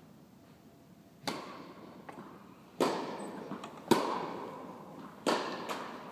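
Tennis ball struck by rackets and bouncing on the court: five sharp pops over about four and a half seconds, each echoing in the large indoor tennis hall.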